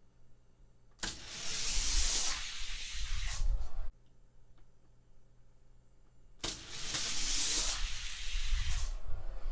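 Die-cast toy cars rolling fast down a plastic orange race track, a rushing hiss with a low rumble, in two runs of about three seconds each. The first run cuts off suddenly.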